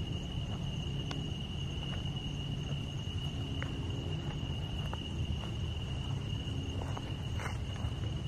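Crickets singing in a steady night chorus, one high unbroken tone, over a low steady rumble, with a few faint clicks.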